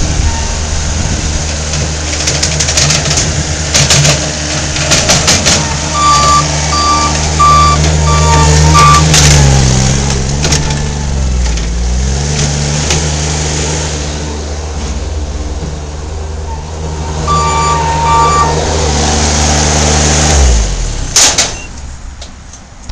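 Mini skid steer engine running at working revs, its pitch dipping and rising for a few seconds midway, with knocks and clanks early on. A reversing alarm beeps about once a second in two short runs. The engine shuts off near the end, followed by one sharp noise.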